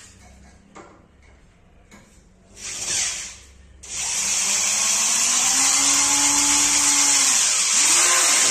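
Cordless drill-driver running, a short burst about three seconds in, then a long run from about four seconds in whose motor pitch rises, holds and falls, as it drives a screw into the wooden bed frame.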